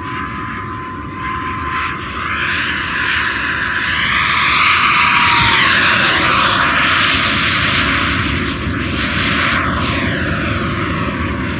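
Freewing Avanti RC jet's 80 mm, 11-blade WeMoTec electric ducted fan making a fast low pass. A rush of fan noise builds to a peak about six seconds in and then fades, while the fan's whine drops in pitch as the jet goes by.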